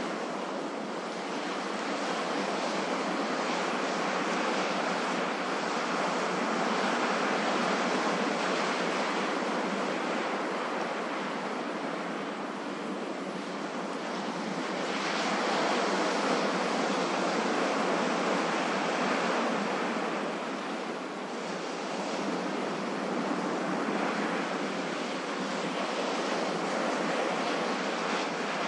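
Ocean waves breaking and washing in a continuous rush of surf that slowly swells and eases, with a louder surge about halfway through.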